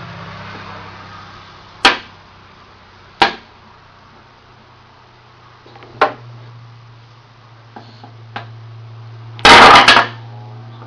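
Toy blocks knocking, one sharp knock at a time a few seconds apart, then a loud clatter of many blocks lasting about half a second near the end.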